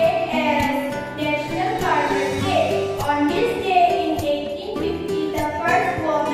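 A song: voices singing over instrumental backing with a bass line and a steady beat.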